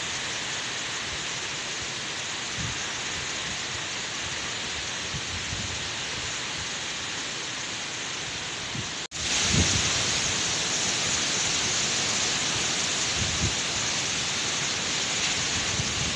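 Typhoon-force wind rushing steadily through palm trees, with low buffeting of the gusts on the phone's microphone. About nine seconds in the sound drops out for an instant, and after the break the rush is louder and hissier.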